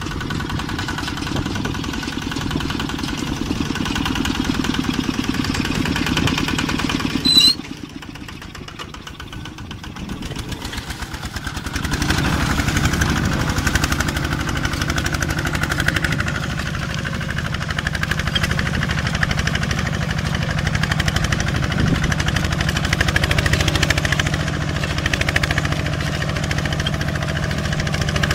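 Tractor engine running under load while pulling a disc plough through soil, with an even pulsing beat. A sharp click comes about seven seconds in, after which the engine sounds quieter for a few seconds, then louder and steady again from about twelve seconds in.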